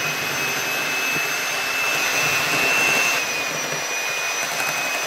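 Electric hand mixer running steadily with a high motor whine, its twin wire beaters whipping cold milk and whipped-cream powder in a glass bowl until the cream thickens.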